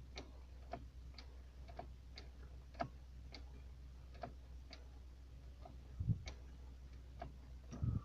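Steady ticking, about two ticks a second, over the low hum of a Dodge Caliber's heater blower running on its first speed. Two dull thumps come near the end.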